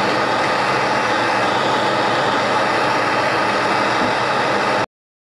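Handheld gas torch flame burning with a loud, even rushing noise, heating a rusted, seized control-arm nut to free it. The sound cuts off abruptly near the end.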